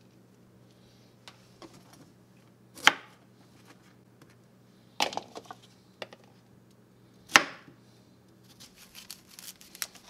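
Cauliflower florets snapped off the head by hand: three loud, crisp cracks about two seconds apart, with small clicks between. Near the end, a quick run of lighter cuts as a knife goes through broccoli on a cutting board.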